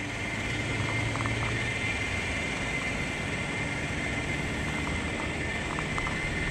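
Remote-control boat's motor running steadily on the water: a thin, even whine over a broad hiss.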